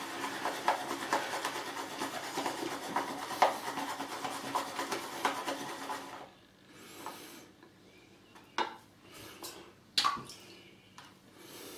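Badger shaving brush swirling lather in an ABS plastic shaving bowl: a steady wet swishing rasp with small clicks of the bristles and bowl, which stops about six seconds in, followed by a few light knocks.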